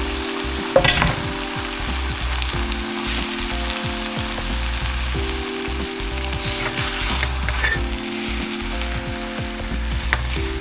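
Steak sizzling as it fries, with a few sharp crackles, the loudest about a second in, over soft background music whose chords change every couple of seconds.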